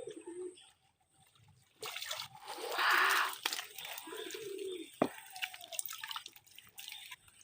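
Water splashing and dripping, with a louder rush of splashing about three seconds in.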